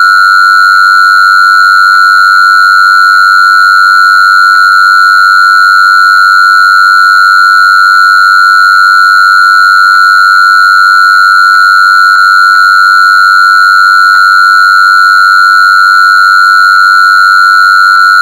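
A single steady, very loud, high-pitched electronic tone with fainter higher overtones, held at one pitch without change.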